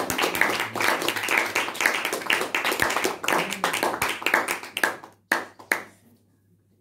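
Small audience applauding with hand claps at the end of a song. The clapping thins out after about five seconds, a couple of last claps follow, and then it stops.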